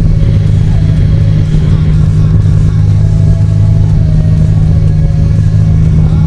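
C42 microlight's engine and propeller running with a steady drone, heard from inside the cockpit.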